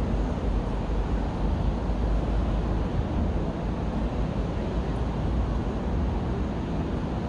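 Steady urban traffic rumble: an even wash of road noise, deep and unbroken, with no single vehicle or event standing out.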